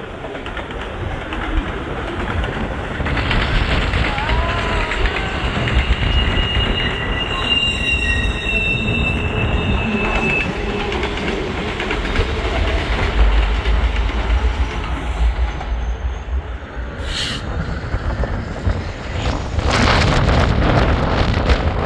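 Alaska Railroad freight train's loaded rock cars rolling past on the rails, a steady rumble with a high, thin wheel squeal for a few seconds in the middle. Near the end the train has gone and wind gusts across the microphone.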